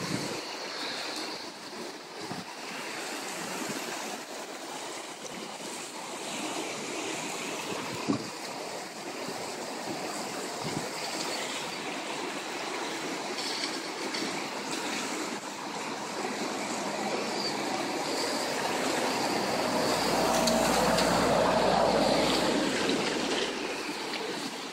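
The Urrin River in spate, its swollen brown water rushing steadily after heavy overnight rain. It grows louder with a low rumble near the end, and there is a single sharp knock about a third of the way in.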